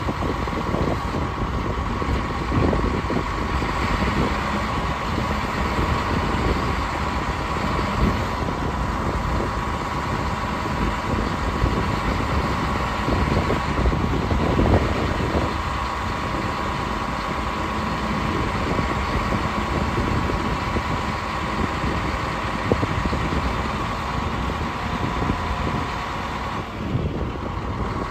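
Caterpillar 12H motor grader's six-cylinder diesel engine running steadily while its hydraulics raise and lower the moldboard blade, with a steady whine over the engine rumble.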